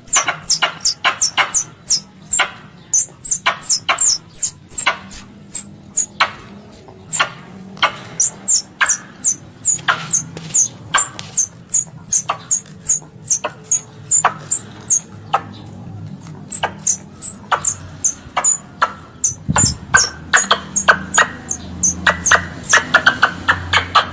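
Squirrel lure call: a long run of sharp, high-pitched chirps, each falling in pitch, a few a second with short pauses.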